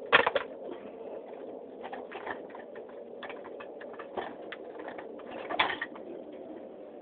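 Sharp clinks and knocks as the glass shade and light-kit parts of a ceiling fan are handled and taken off. The loudest knocks come just after the start and again past the five-second mark.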